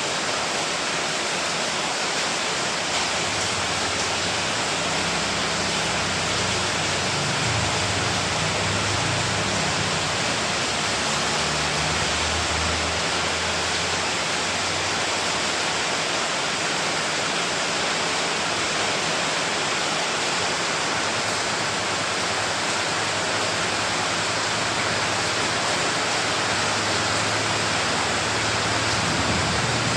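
Steady, heavy rainfall, an even hiss with no single drops standing out. A low rumble rises and fades in the background a few seconds in and again near the end.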